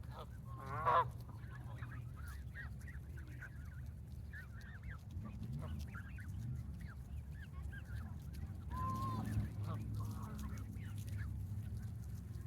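Flock of Canada geese calling: one louder call about a second in, then many short soft calls scattered throughout, over a steady low background rumble.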